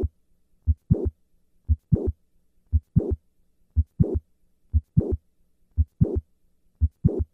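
Heart sounds of mitral valve prolapse at about one beat a second, each beat a pair of heart sounds with a crescendo murmur rising into the second sound. The patient is squatting, and with squatting this murmur decreases.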